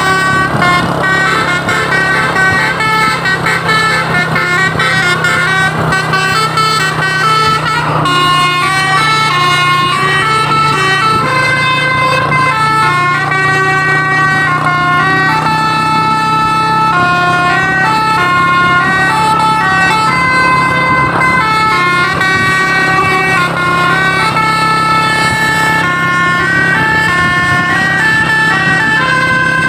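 A Basuri telolet bus horn plays a continuous melody of stepped, held notes. A steady low hum runs beneath it.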